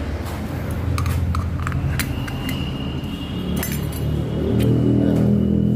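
A screwdriver clicking and clinking against a metal service entrance cap as its cover is taken off, in scattered sharp metallic ticks, over background music.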